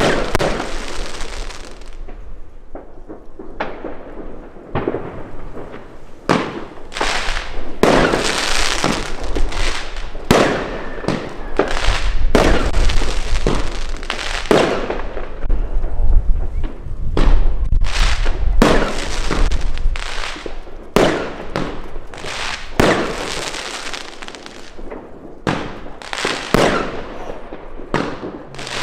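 Pangu 'Brasilian Box' consumer firework cakes, fused together as one set, firing a rapid, continuous series of shots that burst overhead. The shots come thickest and loudest in the middle stretch and thin out toward the end.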